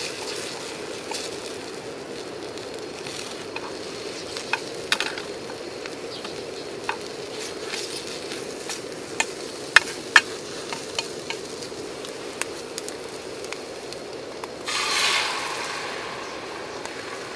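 Beaten egg sizzling in a rectangular tamagoyaki pan, with cooking chopsticks clicking against the pan as the omelette is stirred and folded. Near the end fresh egg is poured into the hot pan and sizzles loudly, then fades.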